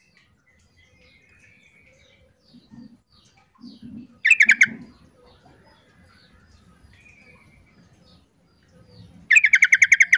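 Female yellow-vented bulbul (trucukan) calling twice: each call is a short, loud, rapid rattling chatter, one about four seconds in and another near the end. Faint chirps come in between. The calls are the female's call that draws male trucukan into answering.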